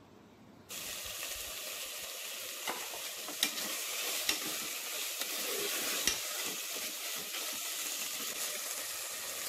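Ground soya chunk masala sizzling in oil in a pot while a steel ladle stirs it, with a few light clicks of the ladle against the pot. The sizzle starts abruptly a little under a second in.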